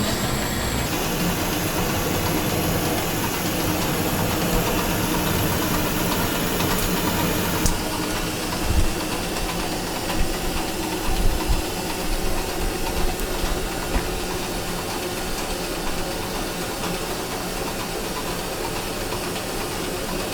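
Steady hiss of a large multi-jet glassblowing hand torch flame, burning through the whole stretch, with a few low bumps in the middle.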